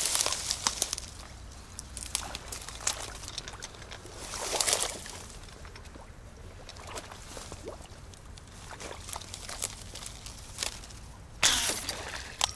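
Shallow water sloshing and splashing in three bursts: one at the start, one about four to five seconds in, and a sudden, louder splash near the end. Small clicks and drips come in between.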